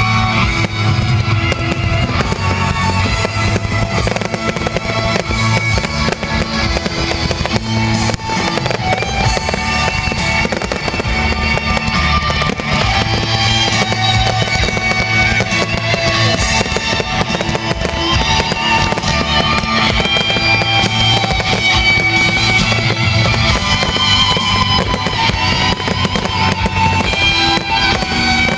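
Fireworks going off in a dense, continuous string of bangs and crackles, with music playing alongside.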